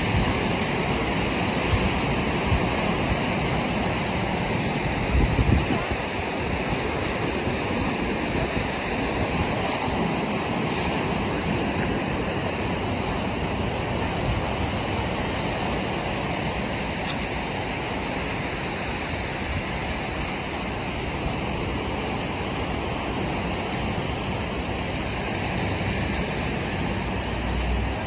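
Ocean surf breaking on a sandy beach: a steady wash of wave noise, with wind on the microphone and a brief low thump about five seconds in.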